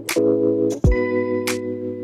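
Background music: held chords over a steady drum beat with low kick thumps and sharper snare-like hits.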